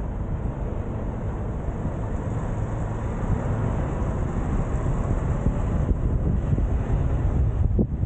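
Steady rumble of a small vehicle riding over a cobblestone street, with wind buffeting the microphone.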